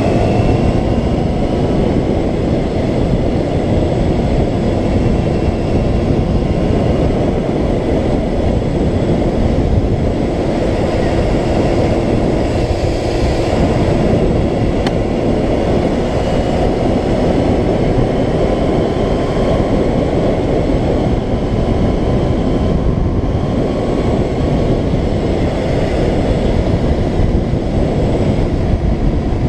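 Yamaha FZR600R's inline-four engine running at steady cruising speed, under heavy wind rush on the rider-mounted microphone.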